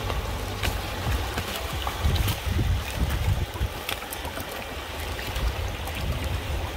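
Small waves washing in over rocks and shingle at the water's edge, with wind rumbling on the microphone.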